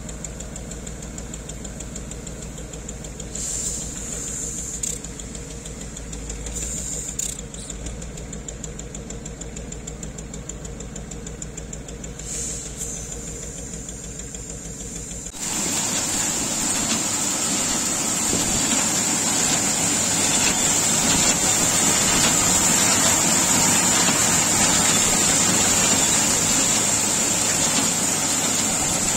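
A dump truck's engine runs steadily while its body is tipped to unload grain. About fifteen seconds in, this gives way abruptly to a louder grain-cleaning machine running: belt drives and shaking sieves with grain passing through, with a steady high whine over it.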